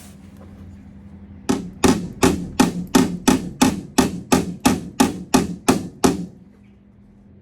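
A hammer striking a steel body repair panel about fourteen times, steadily at roughly three blows a second, each with a short metallic ring. This is the panel being worked into shape after being tack-welded in.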